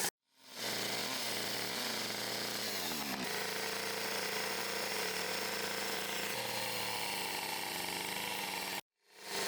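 Gas chainsaw running and cutting into wood, its engine pitch shifting as it is throttled. The sound drops out abruptly and fades back in twice, right at the start and near the end.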